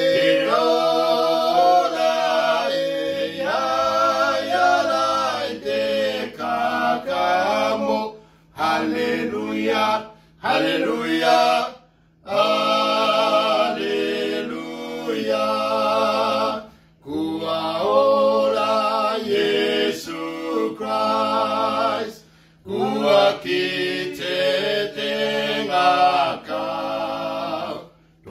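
Three men singing a Cook Islands hymn together a cappella in Cook Islands Māori, in long sung phrases with a few brief pauses for breath between them.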